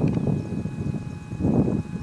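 Strong wind buffeting the microphone: a low, gusting noise that swells and drops, strongest about one and a half seconds in.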